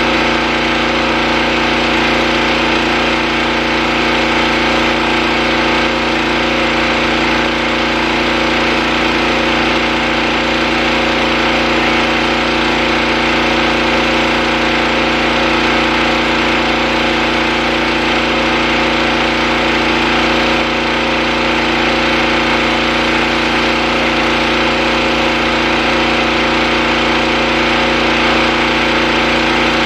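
Pressure washer running steadily at one constant pitch, with the hiss of its surface cleaner spraying concrete.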